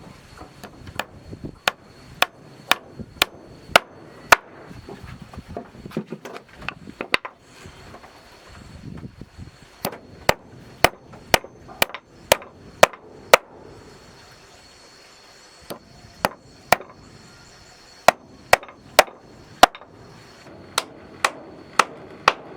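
Hammer blows on wooden floor planks, nailing them down in quick runs of sharp knocks, about two a second, with pauses between the runs.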